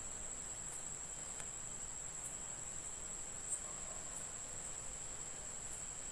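A steady, high-pitched tone held on one note without a break, over low background hiss, with a few faint soft ticks.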